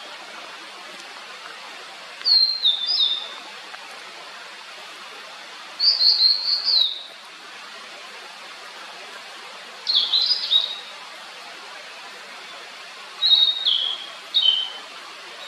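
A blue-and-white flycatcher singing: four short phrases of quick, clear whistled notes that slur downward, about four seconds apart. A steady hiss runs underneath.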